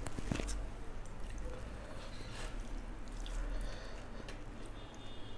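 Soft, wet eating sounds of a rice-and-curry meal: faint squishes with a few small clicks.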